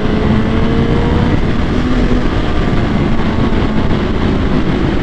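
BMW superbike riding at a steady pace, its engine note faint and even beneath a heavy rush of wind on the helmet microphone.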